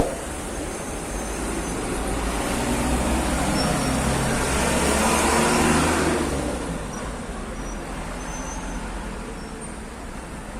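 A car passing by, growing louder to a peak about five to six seconds in and then fading away.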